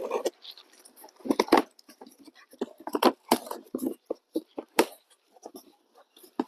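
Cardboard boxes and packaging being opened and handled by hand: irregular rustles, tearing and sharp knocks and clicks.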